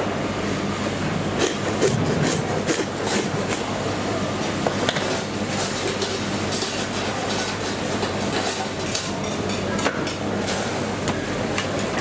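Irregular light knocks and clicks of butchery at a meat stall, knife and tools striking a cutting block, over steady street-market background noise.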